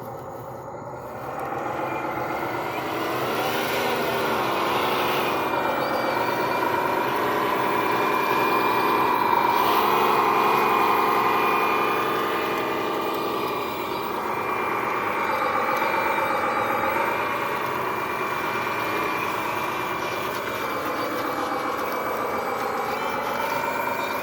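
Engine sound of radio-controlled construction vehicles, rising and falling in pitch as they drive, over a steady high whine. It gets louder about a second and a half in.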